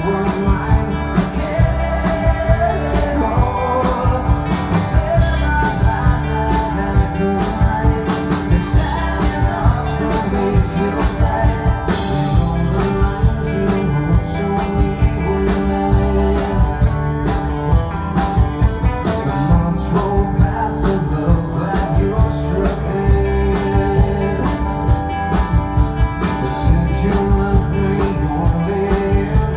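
Rock band playing live: electric guitars, bass and drums, with a male lead vocal singing over them. Heard from the stage beside the band rather than from the audience.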